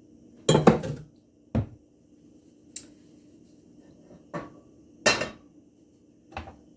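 Pots, pans and utensils knocking and clattering on the stovetop: a loud cluster of clanks about half a second in, then single knocks every second or so, the loudest a little after five seconds.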